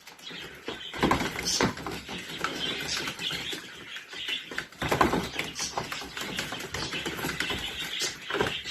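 Chihuahua and chiweenie puppies scuffling in play, making an irregular stream of small clicks and scratches.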